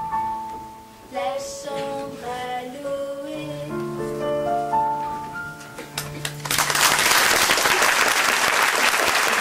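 The closing bars of a slow song, a melody of held notes, then audience applause that breaks out about two-thirds of the way through over the last held note.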